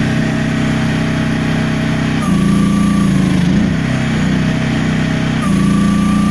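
Small diesel-powered mini excavator running at high throttle. Twice, for a little over a second each time, it grows louder with a high steady whine, as the auxiliary circuit is deadheaded against the just-tightened pressure relief valve and the pump loads the engine.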